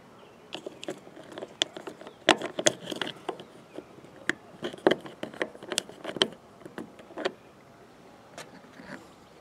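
Irregular sharp clicks and taps of a small metal screw and a screwdriver against a plastic RV marker-light fixture as its mounting screw is fitted. The clicking stops about seven seconds in.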